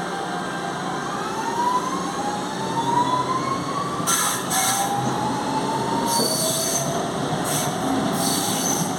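Electric traction motors of a CPTM Series 2070 Alstom train whining as it accelerates. The whine climbs in pitch, drops back and climbs again several times, over the rumble of the running train. Bursts of high hiss and squeal come about four, six and eight seconds in.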